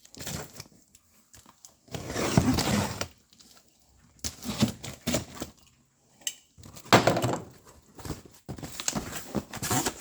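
Cardboard parts box being handled: rustling, scraping and knocks in several irregular bursts, with short quiet gaps between them.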